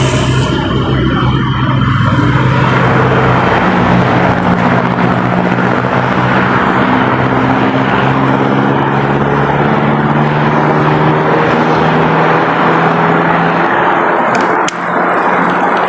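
A vehicle engine running under a steady, loud rush of wind or road noise, its pitch drifting slowly as it changes speed.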